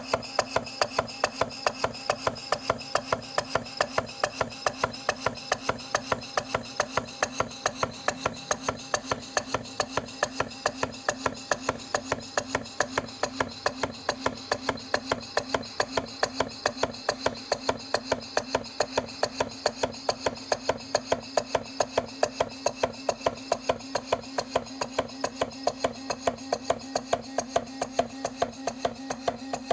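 Model Stuart beam engine running steadily with an even, rapid knock, about four a second, at the top and bottom of each stroke. The owner says the knock is not coming from the piston and does not know its cause.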